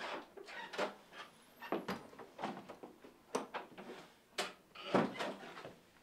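A door being handled and shut, with a run of irregular knocks and clicks from the door and footsteps.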